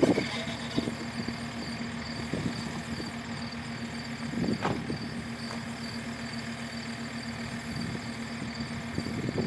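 JCB skid steer's diesel engine idling steadily in the distance, a constant low hum. A single knock with a short clatter sounds about halfway through.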